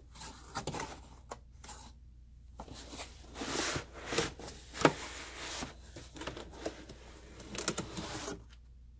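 Cardboard shipping box being handled and emptied: flaps lifted, the box tipped over and the foam-packed inner box slid out, with scraping, rustling and a few sharp knocks, the loudest about halfway through. The handling stops shortly before the end.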